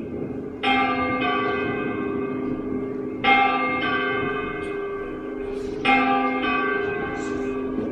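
A church bell struck three times, about two and a half seconds apart, each stroke ringing on with a long, steady hum under the next.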